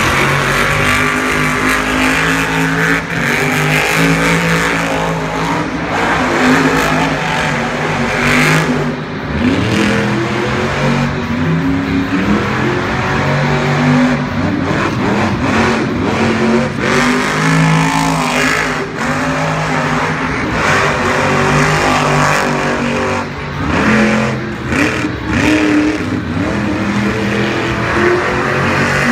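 Monster truck engines revving hard and running under load on a dirt track, the pitch rising and falling again and again as the throttle is worked.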